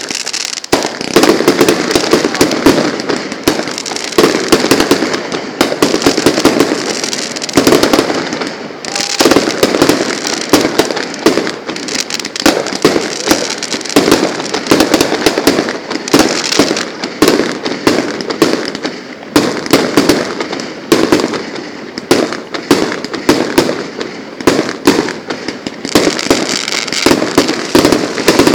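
A fireworks display with shells bursting in quick succession: a dense, loud run of bangs and crackles that goes on without a pause.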